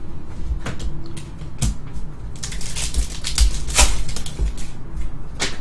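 A foil trading-card pack crinkling and tearing as it is pulled open by hand: a run of irregular crackles, densest about halfway through, with a few low handling bumps.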